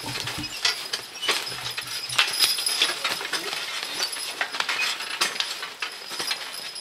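A team of draft horses pulling a wheeled forecart over brushy, snowy ground: irregular clinking of harness hardware and a hanging chain, with twigs snapping under hooves and wheels.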